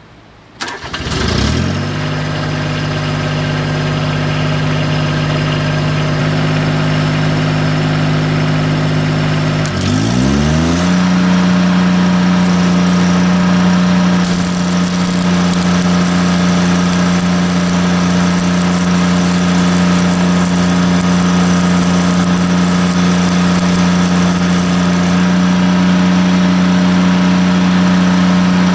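Engine-driven welder's engine cranking and catching about a second in, running at a steady low speed, then speeding up to a higher steady speed about ten seconds in.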